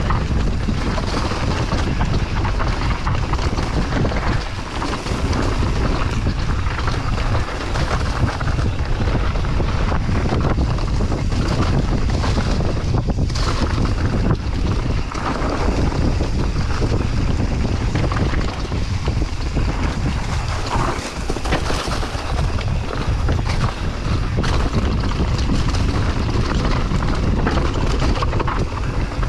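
Wind buffeting the microphone of a mountain bike riding a dirt trail at speed, a steady low rumble over the tyre noise, with many small knocks and rattles from the bike.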